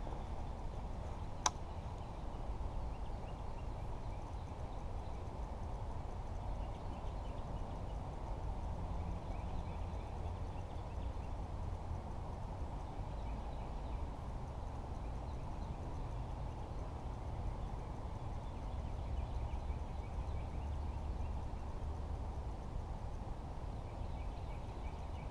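Strong wind buffeting the microphone: a steady low rumble with no let-up. A single sharp click about a second and a half in.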